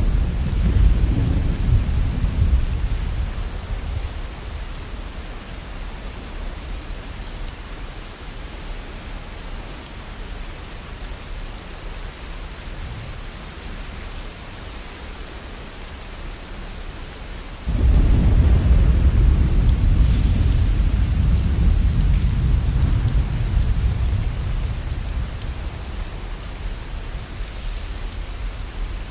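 Steady heavy rain falling, with thunder: a low rumble fading away in the first few seconds, then a sudden thunderclap about eighteen seconds in that rolls on and slowly dies away.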